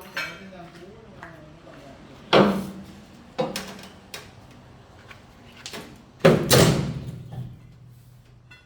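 Car bonnet banged shut twice, about four seconds apart, each bang ringing briefly, with lighter metal knocks in between.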